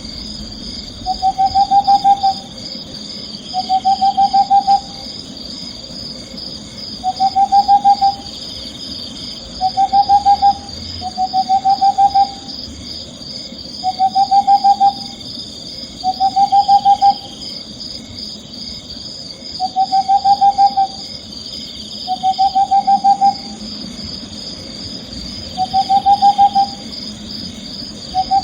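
Owl calling: a trilled hoot of rapid notes, about a second long, repeated every one to two seconds, over a steady high-pitched buzz.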